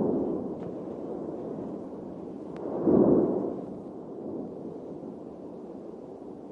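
Mount Etna erupting: a continuous deep rumbling roar with two booming blasts that swell and fade, the louder one about three seconds in.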